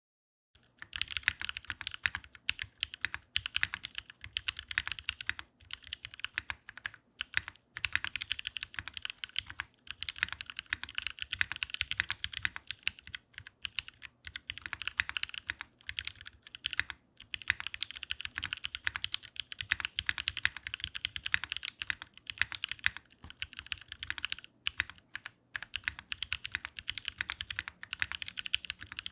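Typing on a WKL Sirius 60% mechanical keyboard with lubed NovelKeys Cream linear switches and GMK Nines keycaps. The key presses come thick and fast in runs of a few seconds, with brief pauses between them.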